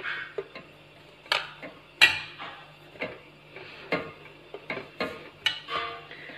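Hands kneading stiff bajra (pearl-millet) dough in a large steel paraat: irregular knocks and scrapes of dough and knuckles against the metal plate, about one or two a second.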